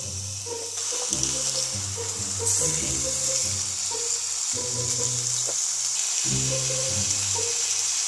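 Beef steak searing in a grill pan: a steady sizzling hiss of frying fat that grows louder about two and a half seconds in, under background music.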